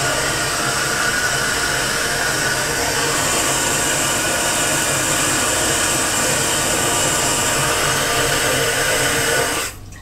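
Cold water running steadily from a kitchen tap into a measuring jug, cut off abruptly near the end as the tap is shut.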